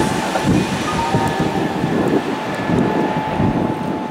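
Kintetsu electric commuter train running away down the line after departing, its running noise with a faint steady whine, the higher sounds of it fading as it recedes.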